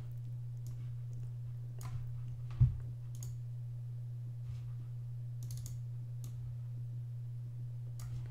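Scattered clicks from working a computer at a desk, with one louder thump a little over two and a half seconds in, over a steady low hum.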